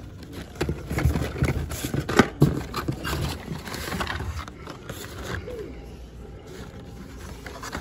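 Blister-carded Hot Wheels cars clacking and rustling as a hand flips through them in a cardboard shipping case: a quick, uneven run of plastic clicks and knocks that thins out after about five seconds.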